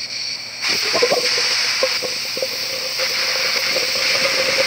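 Air blown into a 3D-printed plastic Lockwood pulse jet's combustion chamber, making a steady rushing hiss with a steady tone under it and a few crackles, growing louder about half a second in. The gasoline is thrown out of the exhaust pipe as flame and the engine does not start pulsing.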